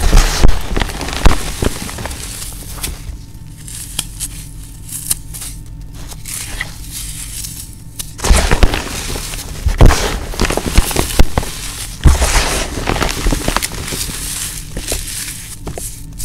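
Crumbled dry floral foam crushed and squeezed in bare hands: crispy, crunchy crackling that comes in waves, loud at the start, softer for a few seconds, then loud again from about eight seconds in.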